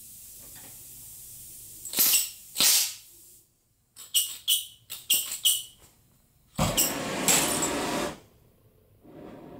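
A torch being brought back onto a seized exhaust manifold stud: two short knocks of handling, a quick run of about seven clicks, a loud rush lasting about a second and a half, and near the end a steady hiss as the torch flame runs.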